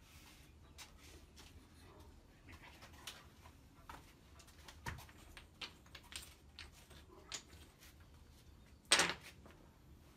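Small wooden parts being handled on a wooden workbench: scattered faint taps and knocks, then one louder, short clatter about nine seconds in as a handful of cut wooden hook pieces is set down on the bench.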